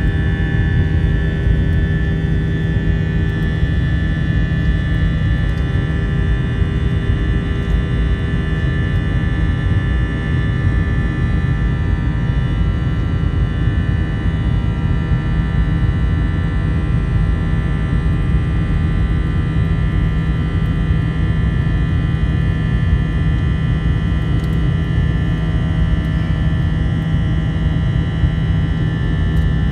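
Cabin noise of an Airbus A321-212 climbing after takeoff: its CFM56 turbofan engines run steadily at climb power, a deep rumble with several steady whining tones above it, heard inside the cabin.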